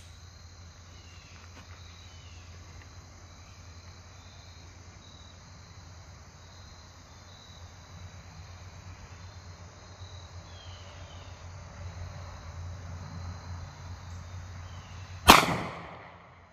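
A single shot from a Springfield XDM Elite 10mm pistol with a 3.8-inch barrel, firing PMC Bronze 170-grain jacketed hollow point, near the end. Before it, crickets chirping steadily over a low hum.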